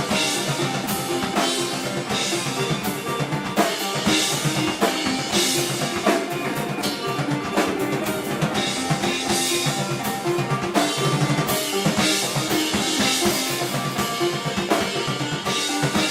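Live band playing loudly, an instrumental stretch driven by a drum kit with frequent cymbal crashes and snare hits over sustained guitar and bass.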